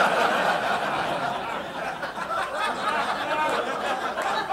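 Audience laughing, many voices at once, starting loudly and easing a little toward the end.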